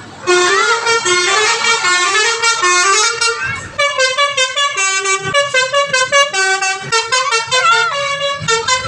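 Basuri telolet horn on a bus playing a loud, fast melody of stepping notes that starts suddenly just after the beginning, dips briefly about three and a half seconds in, then carries on in quicker, choppier notes.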